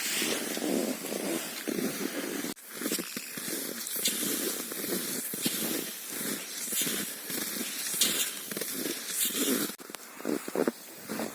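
Cross-country skis creaking and crunching on frozen snow in a repeating stride rhythm, the dry squeak of snow in hard frost.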